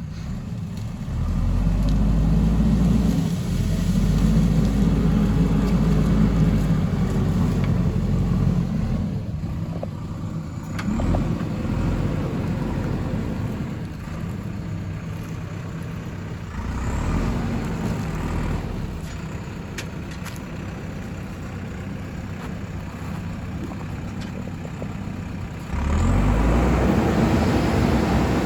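Backhoe loader's diesel engine running, revving up under load about a second in and again several times later, settling back to a lower idle in between.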